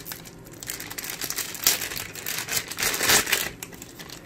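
Clear plastic zip bag crinkling as hands handle it and take an accessory out, in irregular crackles that are loudest a little under two seconds in and again around three seconds in.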